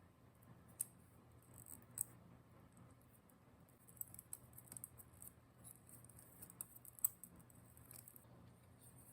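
Faint, scattered small clicks and light scratching from hobby tools working on plastic model kit parts, over a low steady hum. The sharpest click comes about seven seconds in.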